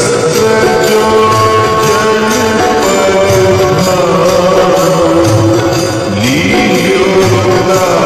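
Devotional music with a steady beat, jingling percussion and long held melody notes.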